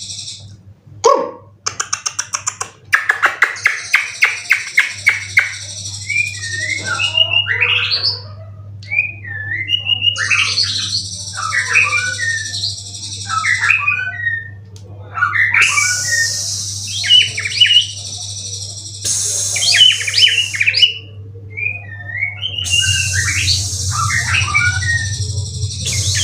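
White-rumped shama singing in varied, loud whistled phrases and glides, with a fast run of clicks about two seconds in. A high hiss comes and goes underneath, and a low hum runs steadily below it.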